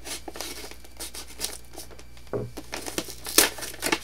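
A mailed package's wrapping being torn open and crinkled by hand, in irregular rustles and rips, the loudest near the end.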